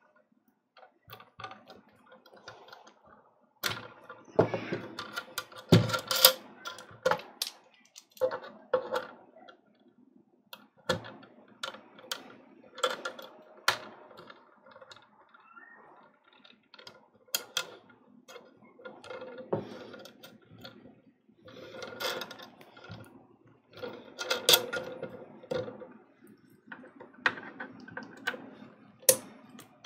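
Hands working a two-arm gooseneck LED spot light and its control box, with irregular clicks, taps and rustles as the flexible arms and their screw-on knobs are handled.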